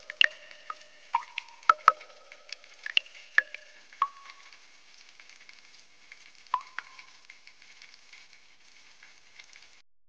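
Water dripping from a mossy rock face into a still spring pool, each drop landing as a sharp, pitched plink. The drops come quickly for the first four seconds or so, then thin out to a couple of louder plinks and a few faint ones.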